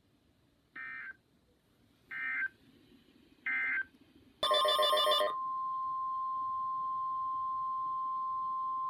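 Emergency Alert System data signal on NOAA Weather Radio: three short, screechy digital data bleeps about a second and a half apart, the end-of-message code closing the previous warning. About four and a half seconds in comes a brief harsh buzz, and then the steady single-pitch weather radio warning alarm tone that announces the next warning.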